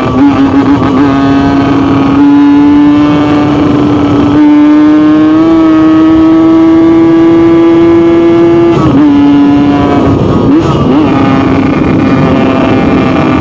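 Yamaha RX-King 135cc single-cylinder two-stroke motorcycle engine running hard under way, its exhaust set up for a gruff 'ngorok' (snoring) note. The buzzing engine note holds fairly steady and creeps up in pitch, then dips about nine seconds in and wavers up and down after that.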